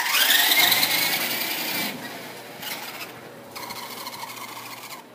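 Small electric motor and gears of a radio-controlled toy Hummer whining, rising sharply in pitch as it speeds up in the first second. It then drops back and runs more quietly, with a short pause near the middle.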